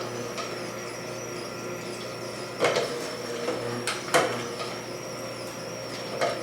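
Greenstar twin-gear juicer running steadily, its motor giving a low, even hum while juicing oranges. Several sharp knocks come through it, a pair close together in the middle and one near the end.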